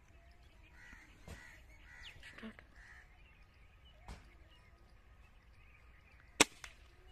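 Faint bird calls in the background, then a single sharp crack about six seconds in, the Diana 350 Magnum spring-piston air rifle firing, with a weaker click a moment after.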